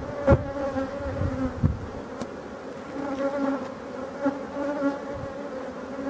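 Honeybees buzzing in a steady hum over an open hive of a large colony while frames are lifted out. There are a couple of short knocks near the start.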